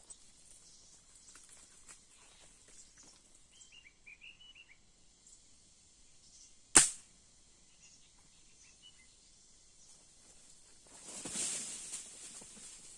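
A single airgun shot: one sharp crack about seven seconds in, after a few faint bird chirps. Near the end, a short burst of rustling.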